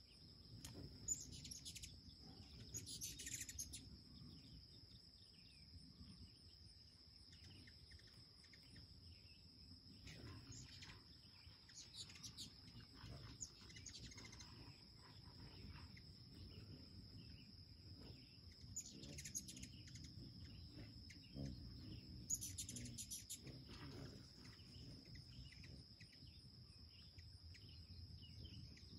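Faint chittering calls of hummingbirds in short bursts every few seconds, over a steady high-pitched insect drone.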